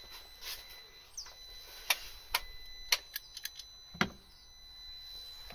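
A handful of sharp metallic clicks and taps, irregularly spaced, from the compression tester's gauge and brass hose coupling being handled; the last, about four seconds in, carries a dull knock.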